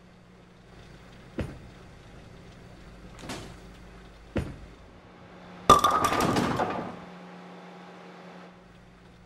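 Three separate knocks, then a loud crash of hard objects with ringing clatter that dies away after about a second.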